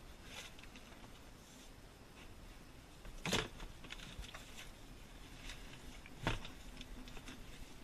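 Plastic sump pit lid being handled and set over the pit: faint scattered handling noise and two sharp knocks about three seconds apart, the first a little louder.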